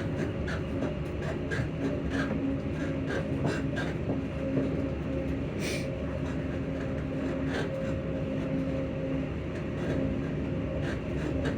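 ScotRail Class 334 electric multiple unit running, with a steady two-note hum from its traction motors over rail running noise and frequent light clicks. A sharper click comes about halfway through.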